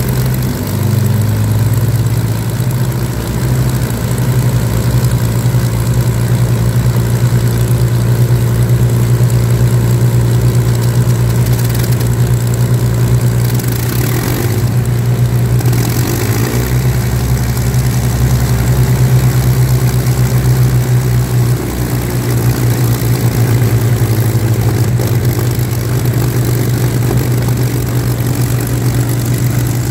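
Avro Lancaster's Packard-built Merlin V-12 piston engines idling on the ground, a steady low drone, with a brief change in note about halfway through.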